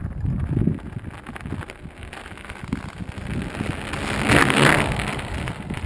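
Lake ice flexing under a fat bike's weight, crackling, with a louder crackling burst a little past four seconds in, over a low rumble.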